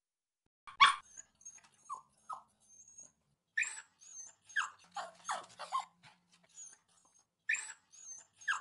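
A dog whining and yipping: short, high cries that fall in pitch, coming in small clusters, the loudest about a second in.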